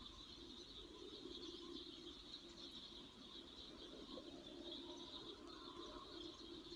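Near silence: faint outdoor background with a steady, faint high hiss.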